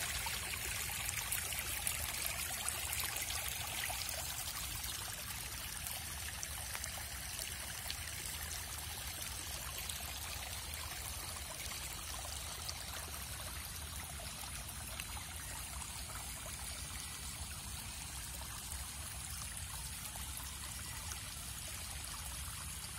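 Rainwater running off after heavy rain: a steady rush of flowing, trickling water, a little louder in the first few seconds.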